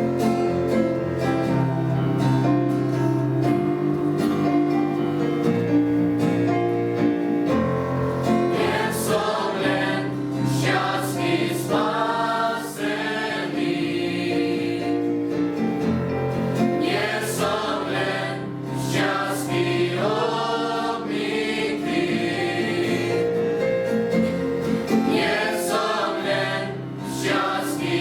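Youth choir singing a Christian song in Slovak, the voices holding long notes over steady low accompaniment.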